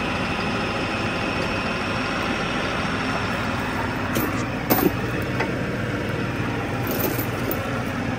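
New Holland Workmaster 75 tractor's diesel engine running steadily as its forks push the engine cradle into the bus, with two sharp knocks about halfway through.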